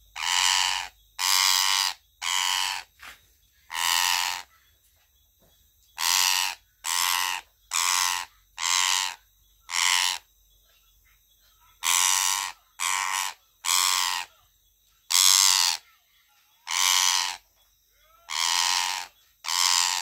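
A parakeet screeching over and over, about sixteen calls of roughly half a second each in irregular bouts with short pauses between, as it is held and cut free from netting: the distress calls of a trapped bird being handled.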